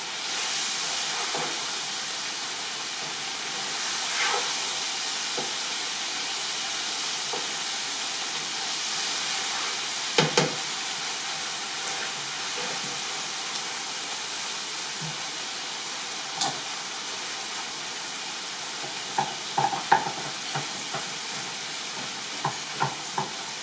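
Chicken tikka masala sizzling and frying in a hot kadai, a steady hiss, with a spoon scraping and knocking against the pan now and then, most often near the end.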